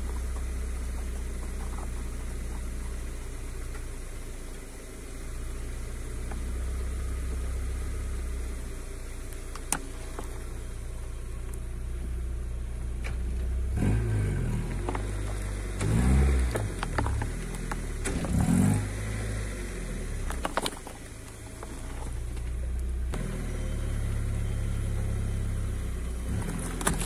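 Car engine idling with a steady low hum. For a few seconds around the middle the engine note wavers up and down and grows louder, and a few sharp clicks stand out.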